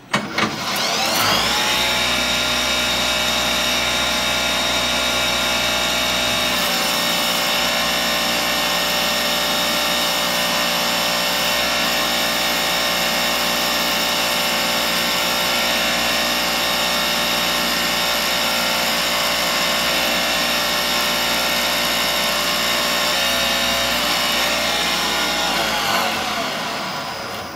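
CNC milling machine spindle spinning up, drilling a hole all the way through a small Uzi handguard stud with coolant spraying, then winding down near the end. A steady, loud whine made of many tones over a hiss.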